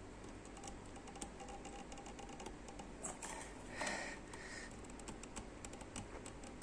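Faint, irregular light clicking and tapping of metal pump parts and an adjustable wrench being handled while a part is screwed onto the pump's motor shaft by hand.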